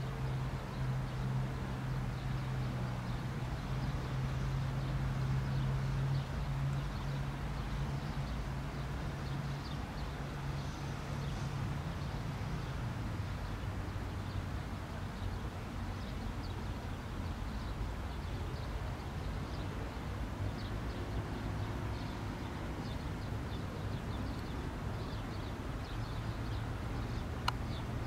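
Outdoor ambience: a steady low engine hum, strongest for the first ten seconds and then fainter, under a low rushing noise and faint bird chirps, with one sharp click near the end.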